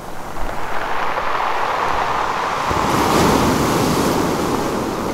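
Ocean waves washing in as a steady rush, swelling into a louder surge about three seconds in.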